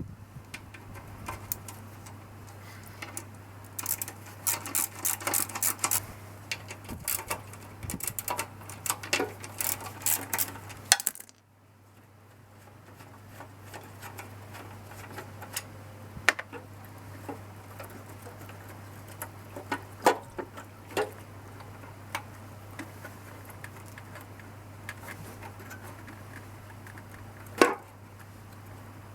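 Hand tools and small metal parts clicking and clattering while a lawnmower's carburetor and fuel tank are being taken off. There is a dense run of quick clicks and knocks for the first ten seconds or so, then only scattered knocks, over a steady low hum.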